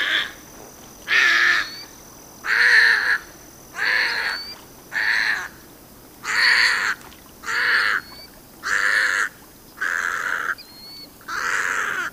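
Little blue heron giving harsh squawks: about ten rough calls in a row, each about half a second long and a little over a second apart.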